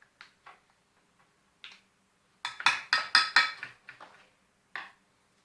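Kitchen utensils and cookware clinking: a few light knocks, then about two and a half seconds in a second-long burst of ringing clatter, and one more knock near the end.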